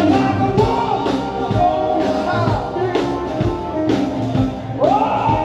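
Rock band music: a singing voice over guitar and drums, steady throughout.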